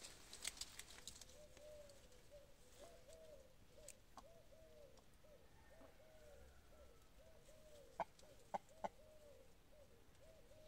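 Brahma hen giving a long run of soft, low clucks, two or three a second. Three sharp clicks come close together about eight seconds in.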